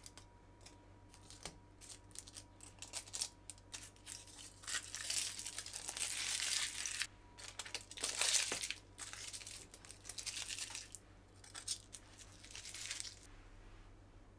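Crinkling and rustling with scattered clicks, loudest in two spells in the middle.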